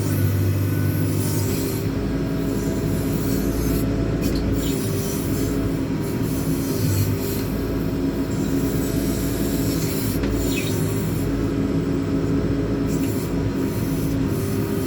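JCB 4CX backhoe loader's diesel engine running steadily while the rear backhoe arm works, with occasional high-pitched squeaks and scraping from the digging gear.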